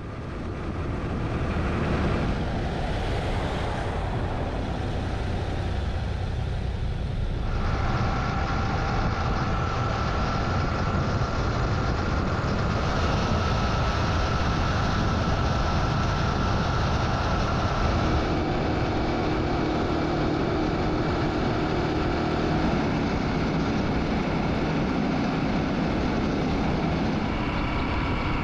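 Yamaha Ténéré motorbike riding at speed: steady wind and road noise with the engine running beneath it. The tone shifts a few times along the way.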